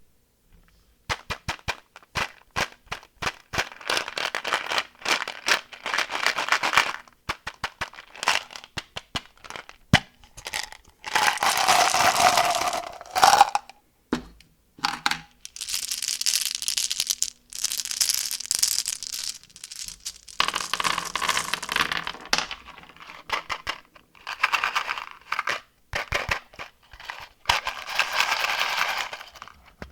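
Plastic candy wrappers and packaging being crinkled and torn open by hand, in bursts of rustling separated by many sharp clicks and taps.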